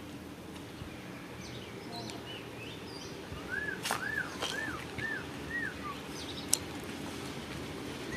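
A bird calling a quick run of about five short arched whistled notes midway, over a steady low background hum, with a single sharp click about two-thirds of the way in.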